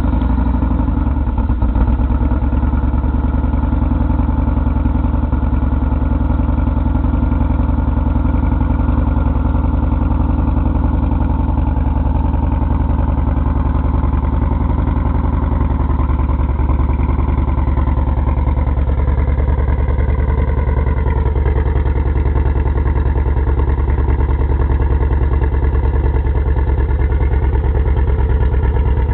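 Yamaha Road Star Warrior's V-twin idling steadily through an aftermarket Tailgunner exhaust, with a deep, even exhaust note.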